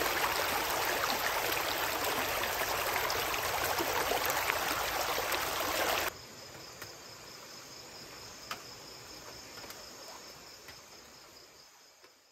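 Shallow stream rushing over rocks. About six seconds in it cuts to a much quieter background with a faint, steady high insect trill, which fades out near the end.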